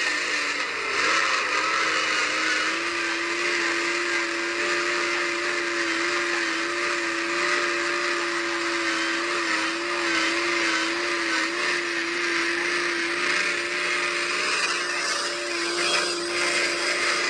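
Heavy dump truck's diesel engine running steadily under load: a constant drone with a steady whine over a wide hiss.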